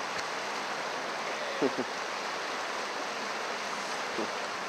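Steady rushing of water through rapids, with a brief falling shout about one and a half seconds in and a fainter one near the end.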